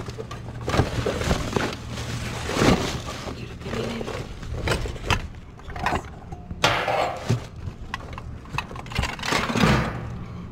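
Plastic bags and cardboard rustling and crinkling as trash is shifted by hand in a dumpster, with irregular bumps and scrapes, over a low steady hum.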